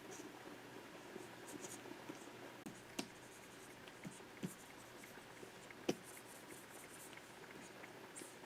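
Pen stylus scratching in short strokes on a Wacom 24 Pro drawing surface, with a few sharp taps, the loudest about six seconds in.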